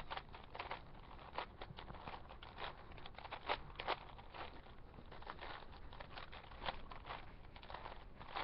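Plastic clicks and clacks of a 4x4 Rubik's cube's layers being turned by hand, coming in quick irregular runs. The cube is unlubricated, so the turns are dry.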